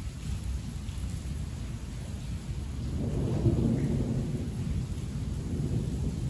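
Heavy rain with rolling thunder, the low rumble swelling about three seconds in.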